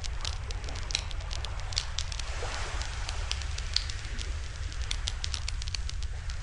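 Wood fire crackling in a small barbecue-grill fire stand, with many irregular sharp pops over a steady low rumble.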